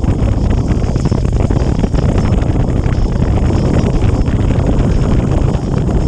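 Wind buffeting the microphone of a camera on a moving motorcycle, a loud, steady rush, with the motorcycle's running noise underneath.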